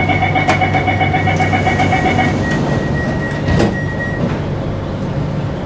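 Singapore MRT train's door-closing warning: a rapid beeping, about eight beeps a second, that stops a little over two seconds in. About three and a half seconds in the sliding doors shut with a knock, over the train's steady hum.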